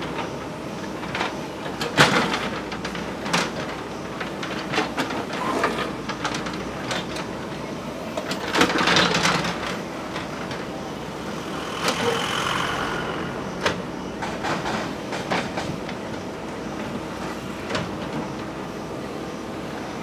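JCB 3DX Super backhoe loader's diesel engine running steadily under hydraulic load as the backhoe bucket digs into loose rock, with irregular clanks and a longer scraping of stones against the steel bucket.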